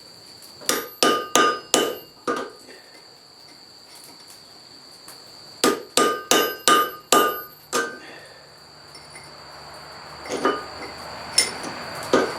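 Blacksmith's hammer striking iron on an anvil in quick runs of blows, each ringing briefly: about five blows, a pause of a few seconds, then about six more, and a few lighter strikes near the end.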